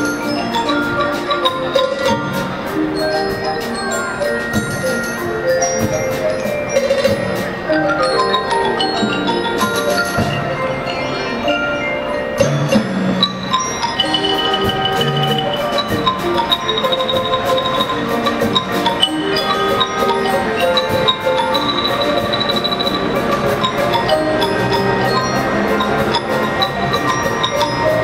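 An elementary school percussion band playing a fast, melodic piece on tuned mallet percussion, with quick runs of struck notes over other percussion.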